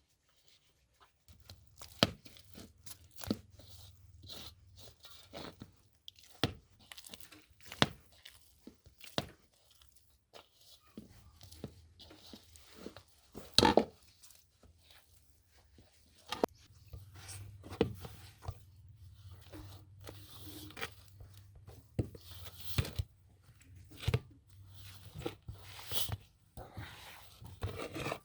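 Food being cut up by hand: irregular knife knocks against a board, with crunching and tearing sounds, one loud knock about halfway through.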